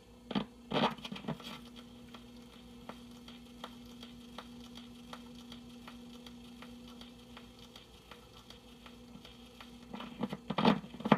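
Playback needle tracking the shallow grooves cut into an aluminium hard-drive platter spinning at 78 RPM, with a few clicks as it is set down. Then a steady low hum with crackling surface noise and a faint tick about every three-quarters of a second. Louder sound comes in near the end.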